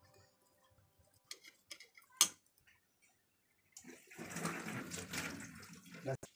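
Boiled potatoes and soft cooked brinjal handled on a plate: a few light clicks and one sharper tap, then about two seconds of wet, squishy rustling.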